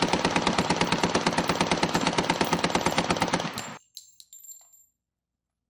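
A long burst of rapid automatic gunfire, an even stream of shots that stops abruptly a little under four seconds in. A few scattered light clinks follow.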